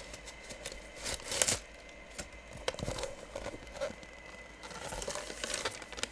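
Plastic sleeve and paper packing crinkling and rustling as a baseball bat is slid out of its shipping tube, with scattered light knocks. The loudest rustle comes about a second and a half in.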